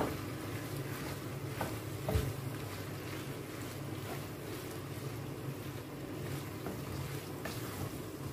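A wooden spoon stirring macaroni and grated cheese in a nonstick pan: a few soft scrapes and knocks, the loudest about two seconds in, over a steady low rumble.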